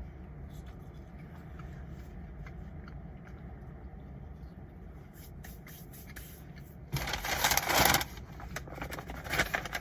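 Paper fast-food bag rustling and crinkling loudly for about a second, then lighter crinkles and clicks as the food is unpacked, over a steady low hum.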